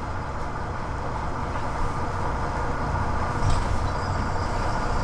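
A boat's twin engines run in gear under remote control, turning the boat: a steady low rumble that grows slightly louder.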